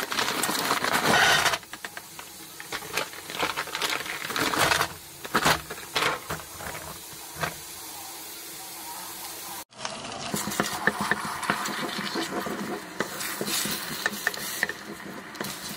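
Kitchen clatter: clinks and knocks as dumplings are tossed into a stainless steel steamer basket, then, after a cut, eggs sizzling in a frying pan as they are stirred into scrambled eggs.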